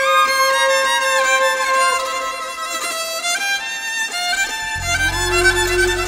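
Instrumental music: a melody moving in steps over a held note, with a deep low tone coming in about five seconds in.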